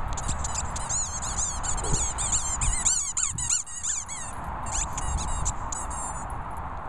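Squeaky dog toy squeaked over and over in quick, high-pitched squeaks as a small dog bites on it, stopping about six seconds in.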